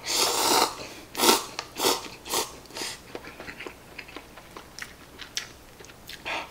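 A man slurping instant cup noodles: one long slurp, then several short slurps about half a second apart, then quieter chewing with small wet clicks.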